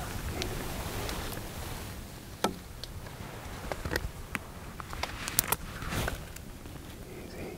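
Scattered small clicks and rustles of a bowhunter handling gear in a tree stand, the sharpest about two and a half seconds in and a few more close together past the middle, over a low steady rumble.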